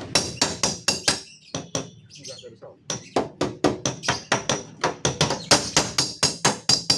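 Hammer tapping rapidly on the sheet-metal door panel of a Honda Brio, about four to five strikes a second with a bright metallic ring, working out a dent; the tapping pauses briefly about a second and a half in, then resumes.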